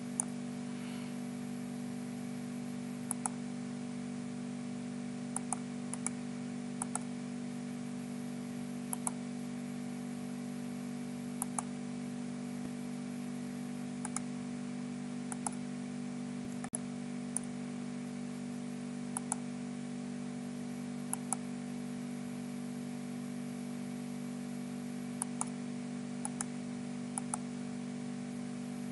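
Computer mouse buttons clicking, left and right, often two clicks in quick succession, every couple of seconds, over a steady low electrical hum.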